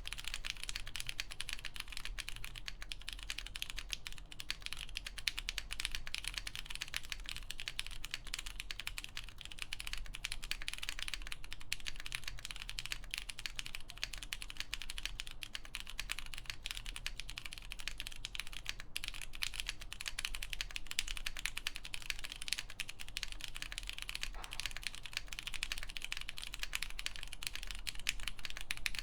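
Continuous fast typing on a top-mount 65% mechanical keyboard with lubed Cherry MX Purple switches, a full polypropylene plate and CRP keycaps, a steady rapid patter of keystrokes.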